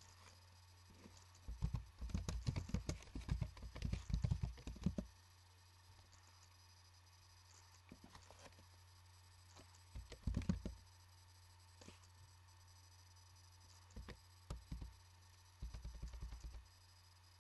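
Typing on a computer keyboard in three bursts of keystrokes, the longest in the first few seconds, over a steady low hum.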